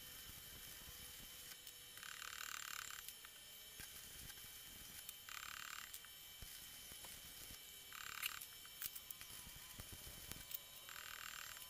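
Stick (arc) welding on a steel crusher shaft: the arc crackles and hisses in four short runs, each lasting half a second to a second, with pauses between. The weld is building up metal on the worn end of the shaft.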